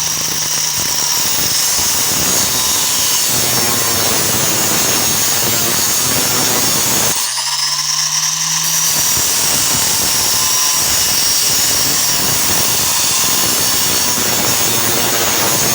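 Angle grinder with an oversized abrasive cutoff wheel cutting into a brass door knob clamped in a vise. It starts with a steady motor whine, then bogs into a loud, harsh grinding as the wheel bites. About seven seconds in it eases back to free-running whine for a moment, then cuts again.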